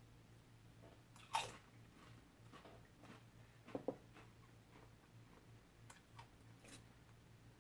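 A person biting and chewing Pringles chips: a few sharp crunches, the loudest about a second and a half in and a quick pair near four seconds, with faint chewing between.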